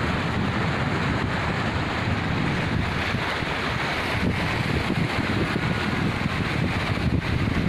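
Steady rush of a fast-flowing, swollen river in flood, with wind buffeting the microphone.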